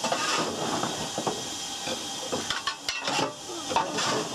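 Steady hiss of steam in the engine compartment of GWR steam railmotor No.93, with a few sharp metallic clanks as a long iron fire tool is worked at the floor beside the boiler.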